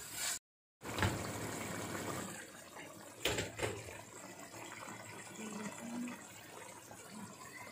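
Arbi (taro root) curry simmering in its gravy in a pot on the stove, bubbling steadily. Two quick knocks sound about three and a half seconds in.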